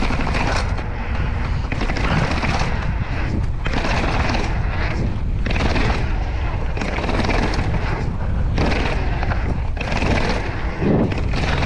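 Wind buffeting the microphone of a bike-mounted camera, with bicycle tyres rolling over stone paving slabs. There is a steady low rumble, with surges of noise about every second.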